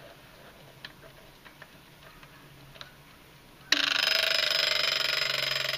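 Vintage Bulova weather-station alarm clock: a few faint clicks, then about three and a half seconds in its alarm goes off suddenly with a loud, continuous rapid ringing that keeps going.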